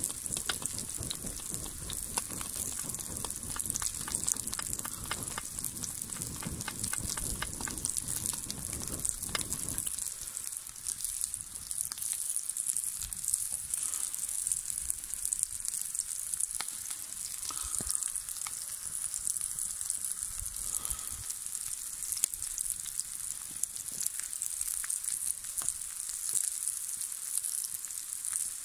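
Oil sizzling steadily in a cast-iron skillet as potato halves and vegetable pieces fry over a wood fire, with scattered crackles from the burning wood. A low rumble beneath it dies away about ten seconds in.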